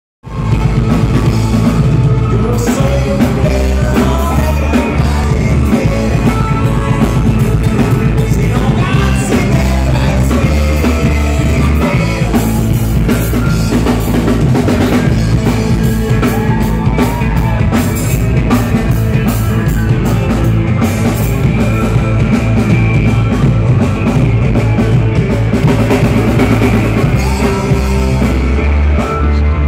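Live rock band playing loudly: male vocals over electric guitar and a drum kit, with a steady beat.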